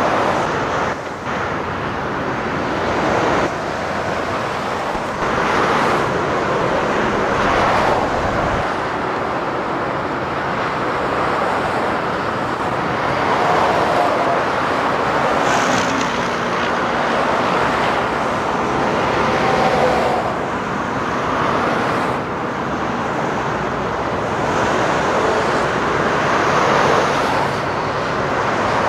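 Steady multi-lane motorway traffic: the tyre and engine noise of cars and heavy trucks passing at speed below, swelling and fading every few seconds as individual vehicles go by.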